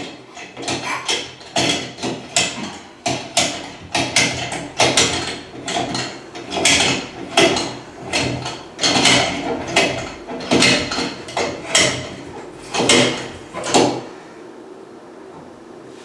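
Chrome tub spout being screwed by hand onto a threaded pipe nipple, a run of irregular rubbing and clicking strokes as it is turned, stopping near the end as the spout seats against the wall.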